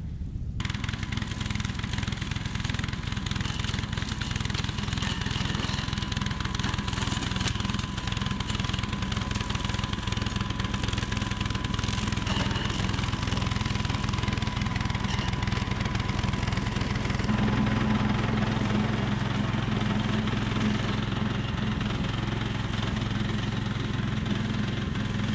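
Billy Goat Outback walk-behind brush cutter's small gasoline engine running steadily under load as the machine is pushed through tall dry grass. It starts abruptly about half a second in and swells slightly louder past the middle.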